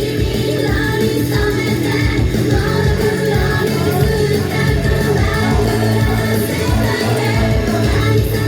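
Live J-pop idol song played loud: female group vocals over a backing track with a heavy, steady bass line.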